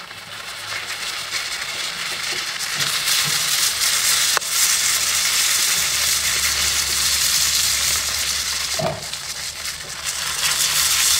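Whole salted fish sizzling in hot oil in a nonstick frying pan. The sizzle grows louder over the first few seconds and then holds steady. A single sharp click comes about four seconds in.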